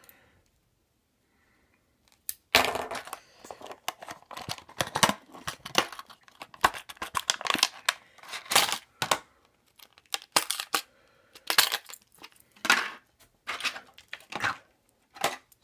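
Fishing lure packaging being torn open and crinkled as a square bill crankbait is taken out, a run of irregular sharp crackles and clicks starting about two and a half seconds in.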